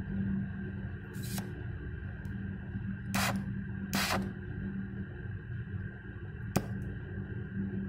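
Oxy-acetylene gas welding torch being lit: three short hisses of gas and one sharp click near the end, over a steady low hum.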